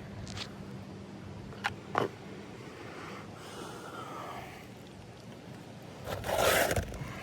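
Handling noise from a replacement roof shingle being worked into place: two sharp knocks about two seconds in, then a louder scrape near the end.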